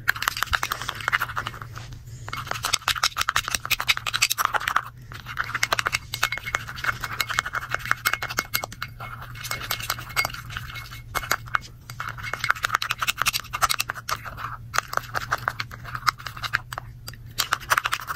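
A plastic spoon stirring thick lotion-and-shampoo slime in a glass bowl: rapid, continuous clicking and scraping, with brief pauses every few seconds.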